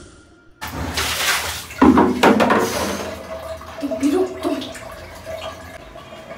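Water splashing and running in a small tiled bathroom for about two seconds, with a heavier surge in the middle, then dying down to a quieter stretch with a faint steady tone.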